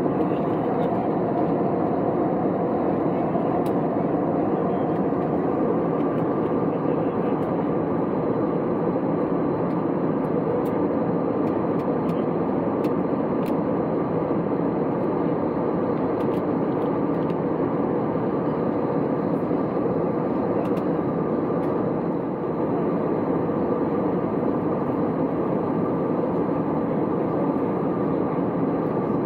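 Steady cabin noise of an Airbus A320neo in cruise at 35,000 ft, heard inside the cabin: an even rushing roar of engines and airflow.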